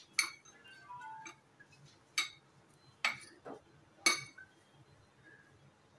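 A metal spoon stirring a dry spice mix in a cut-glass bowl, clinking against the glass a few times with sharp clinks, the loudest about four seconds in.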